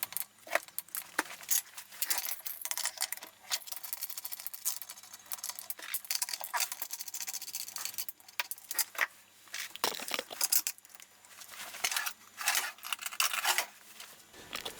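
Metal hand tools clicking, clinking and scraping on metal parts as rigid coax links and a small RF unit are unscrewed from the chassis. The clicks come irregularly, with a quieter stretch a little past the middle.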